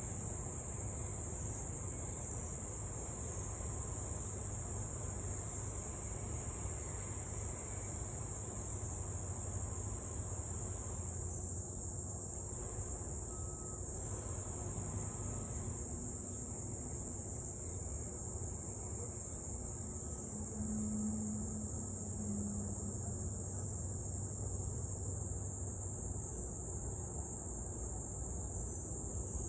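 Steady high-pitched chorus of insects such as crickets, with a low steady hum underneath.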